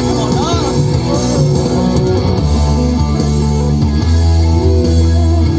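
Background rock music with guitar and bass.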